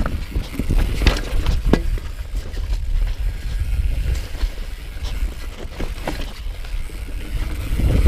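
Mountain bike riding fast down a rocky dirt trail: steady low wind rumble on the rider's camera microphone, with the tyres and bike rattling over rocks and a few sharper knocks.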